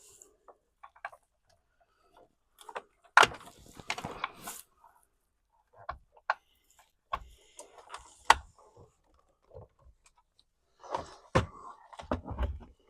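Scattered clicks, knocks and short clatter of tools and parts being handled, with sharp knocks about three, eight and eleven seconds in.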